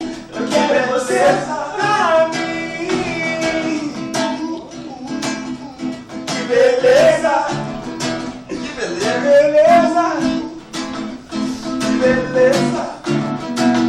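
Acoustic guitar strummed in a steady rhythm, with a voice singing a wordless, gliding melody over it.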